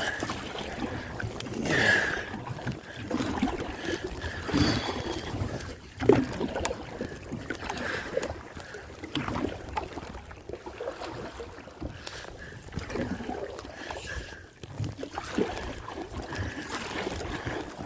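Repeated single-blade paddle strokes, with water splashing and gurgling along the hull of a small outrigger canoe under way.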